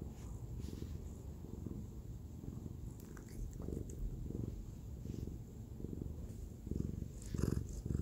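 Domestic cat purring with its face against the microphone, a low steady rumble that swells in pulses about every three-quarters of a second.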